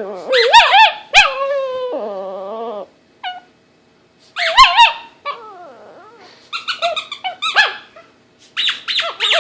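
A dog howling and whining in wavering, rising-and-falling cries in several spells with short pauses, mixed with squeaks from a squeaky toy; the dog is protesting the squeaking it hates.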